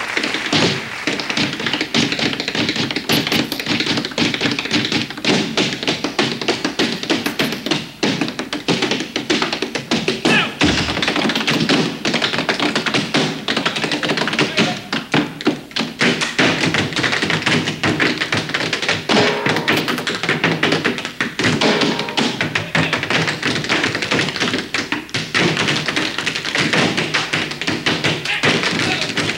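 Tap dancing by a troupe in boots on wooden stage platforms: rapid, dense rhythms of heel and toe taps and stomps, over live music.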